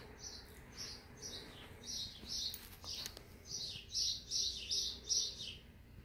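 A bird chirping repeatedly in short high chirps, spaced out at first and then coming faster in a run of about six near the end. A couple of faint clicks come midway.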